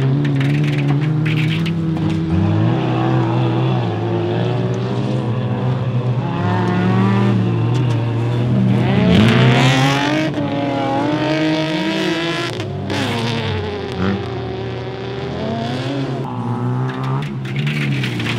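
Several folk-race cars' engines working hard on a dirt circuit, more than one heard at once, the revs climbing and dropping again and again as the drivers accelerate, shift and lift off for the bends, with one strong rev climb about halfway through.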